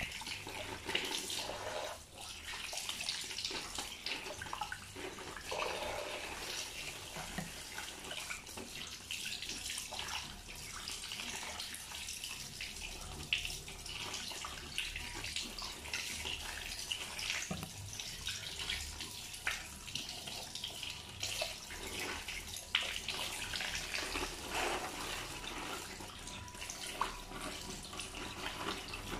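Tap water running steadily from a faucet over whole fish being rinsed by hand and into a sink, with small scattered splashes and knocks.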